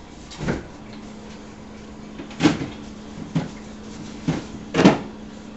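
A handful of short knocks and clicks, about five spread over a few seconds with the loudest near the end, over a faint steady hum.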